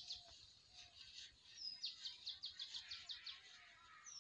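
A small songbird singing faintly, repeating a high phrase: a short slurred note followed by a fast run of about ten sharp chips, heard about two seconds in and again starting near the end.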